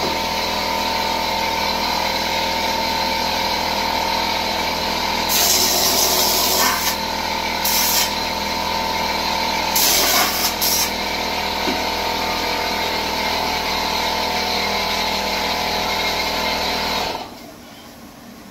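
Air compressor running steadily while a ceiling-texture hopper gun sprays, with several louder hissing bursts of spray. It all cuts off suddenly near the end.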